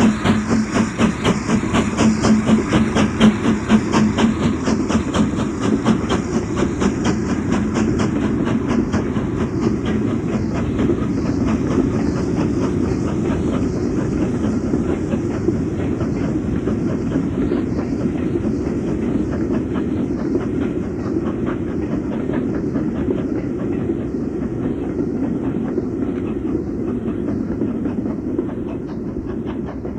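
Steam train running on the rails: a quick, regular beat of about three to four strokes a second, sharpest at first, over a steady rumble of wheels and coaches.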